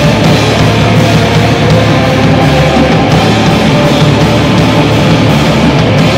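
A rock band playing loud heavy music live, with electric bass and a drum kit with cymbals going without a break.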